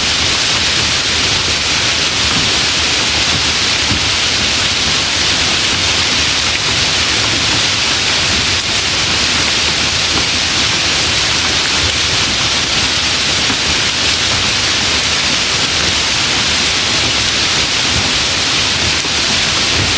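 Steady rain, a dense even hiss of drops with a fine crackle underneath.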